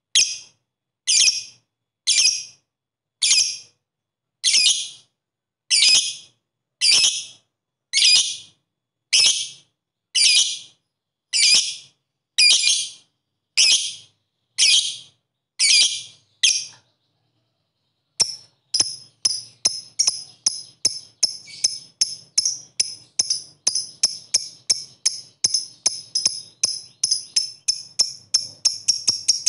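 Fischer's lovebird calling: sharp, high chirps about one a second for some sixteen seconds, then, after a short pause, a fast string of calls that speeds up toward the end into the rapid chatter that lovebird keepers call ngekek.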